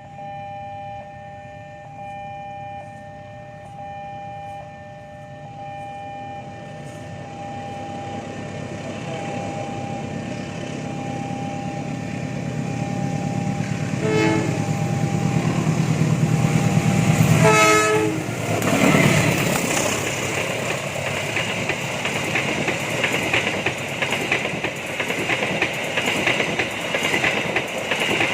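A train approaching, its rumble building, with a steady pitched tone sounding for roughly the first half. The horn sounds in short blasts about 14 and 17 seconds in, then the train passes close with a loud, continuous rattle of wheels and carriages.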